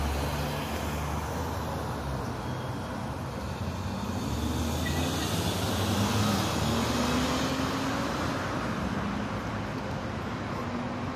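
City street traffic: a steady wash of passing cars' engines and tyre noise, with one engine's hum louder near the start and another passing vehicle coming through in the middle.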